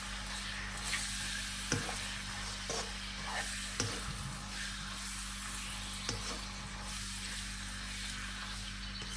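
Marinated chicken pieces sizzling in hot oil in a nonstick wok, stirred with a spatula that scrapes and taps against the pan now and then.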